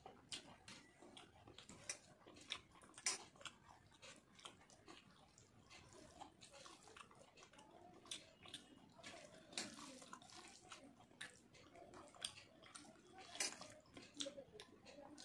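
Faint, irregular wet clicks and smacks of rice and dal being eaten by hand: fingers mashing rice into dal on a steel plate, and mouthfuls being chewed.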